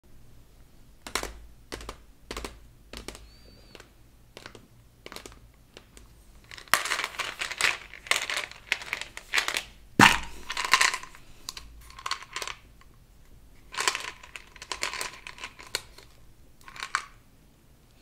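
Tapping and clicking on a plastic Mentos gum bottle, then crinkling and tearing as the packaging is worked open. The loudest sound is a sharp snap about ten seconds in as the flip-top lid pops open, followed by more crinkling.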